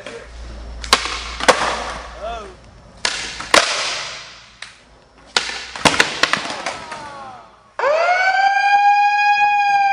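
Skateboard trick attempts on a concrete floor: sharp board pops and landings with the wheels rolling, in three goes. Then, about eight seconds in, a bullhorn megaphone's siren sounds one loud tone that slides up and holds steady, marking the end of the game.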